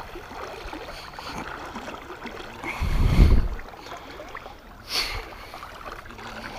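River current swirling and washing around a person wading through it. A louder low whoosh comes about three seconds in, and a short, bright hiss of water about five seconds in.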